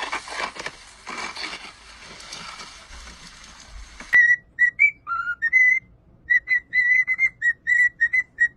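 A steady hiss with some rustling. Then, after an abrupt change about four seconds in, a run of short, high whistle-like notes, mostly at one pitch with a few brief upward slides and one lower note.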